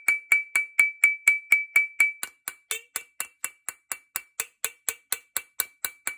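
Small hammer tapping steadily on a rust-seized shotgun action, about four even strikes a second, each with a high metallic ring. The repeated blows are percussive shocking to free plates and screws rusted together under penetrating fluid.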